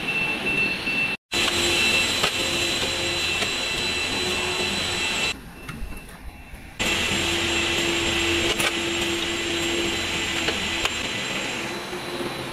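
Steady machinery noise of an automated electric-motor assembly line: a whirring hiss with a faint hum and a few steady tones. It cuts out for an instant about a second in, and goes quieter for a second and a half near the middle.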